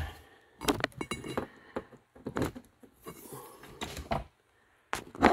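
Handling noise from a phone camera and its mount being repositioned: a run of sharp plastic clicks and knocks, with a softer rustle partway through.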